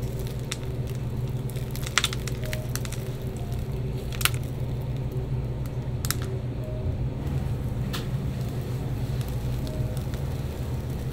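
A steady low hum, with a few sharp cracks about two seconds apart as the baked crust of chimney cakes is torn and unrolled into a spiral.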